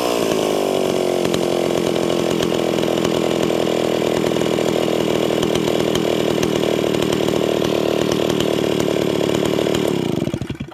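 Stihl 041 Farm Boss two-stroke chainsaw engine settling down from a rev in the first second, then idling steadily. Near the end it sputters and stops.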